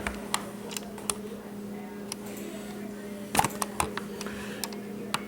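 Scattered clicks and knocks of a camera and tripod being handled and set in place, over a steady low hum. The loudest knocks come about three and a half seconds in.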